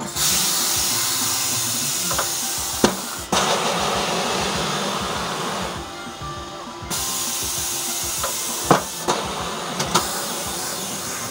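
Compressed air hissing through a pedal-operated pneumatic tyre changer as the foot pedal is held down. The hiss breaks off for about a second midway, then resumes. Sharp metallic clunks come from the machine about three seconds in and twice near the end.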